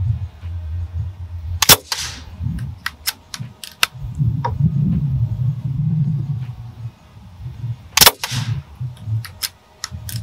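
Two shots from a .22 BSA Ultra CLX pre-charged pneumatic air rifle, each a sharp crack, about six seconds apart, with lighter clicks between them. A low wind rumble runs on the microphone.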